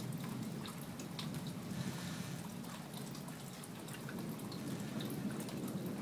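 Light rain dripping: scattered small drips over a soft, steady hiss.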